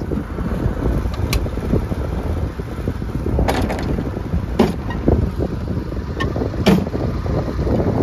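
Wind buffeting the microphone in a steady low rumble, with several sharp knocks as the raised snouts of a corn head are handled and pushed.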